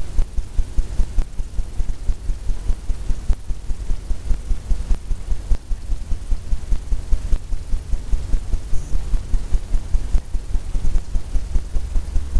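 A brush dabbing rapidly on a stretched canvas makes rapid, even low thumps, about four a second. The taut canvas thuds like a drum head with each stroke.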